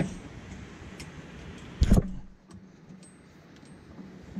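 Handling knocks and small metallic clicks as a rear shock absorber and its top nut are fitted on a Club Car golf cart: a thump at the start, a louder sharp knock about two seconds in, then a few faint clicks, over a low steady hum.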